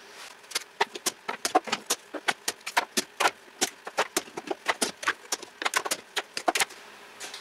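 One-handed bar clamps being released and taken off a wooden frame: a rapid, irregular string of sharp clicks and clacks, many to the second, starting about half a second in and stopping shortly before the end.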